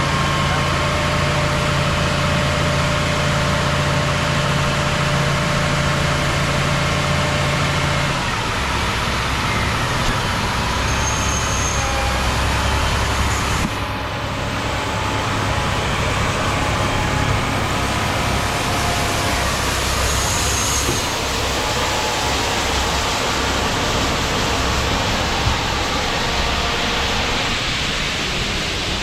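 Heavy diesel harvest machinery (combines and a tractor pulling a grain cart) running steadily, with the engine hum shifting abruptly about eight seconds in and again about fourteen seconds in.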